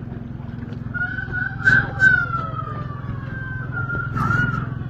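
Roosters crowing: one long drawn-out crow starting about a second in and falling slowly in pitch, and another near the end, over a steady low hum. Two sharp knocks come about two seconds in.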